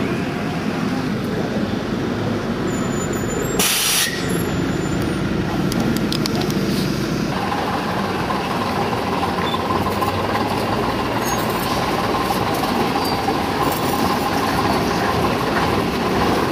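Heavy vintage diesel engines running as vehicles pass close by, with a short loud hiss about four seconds in. From about halfway, the underfloor diesel of an AEC Regal IV RF single-deck bus runs steadily with a whine as the bus moves off slowly.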